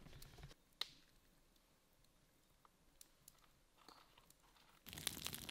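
Near silence with a single sharp click a little under a second in; near the end, the crackling and popping of a wood campfire starts abruptly.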